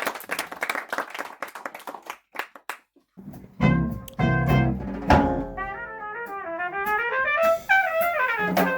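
Scattered clapping fades out in the first couple of seconds. After a short silence, jazz music starts: a trumpet plays a sliding melody over drums and bass.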